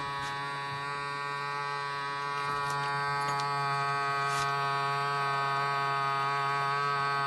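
Small electric vacuum-sealer pump (BBK) running with a steady buzzing hum as it draws the air out of the bag. It gets a little louder about two and a half seconds in.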